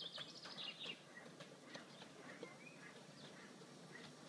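Faint birdsong: a rapid high trill that ends about a second in, followed by scattered chirps.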